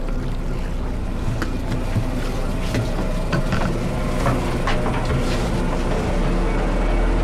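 Fishing boat's engine running with a steady low hum, with scattered knocks and clicks over it. Near the end the low drone grows louder and a faint whine comes in.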